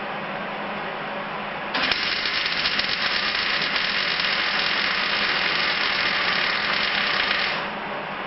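MIG welder arc crackling steadily for about six seconds, starting about two seconds in and cutting off near the end, laying a weld bead on thin sheet steel. A steady low hum runs underneath.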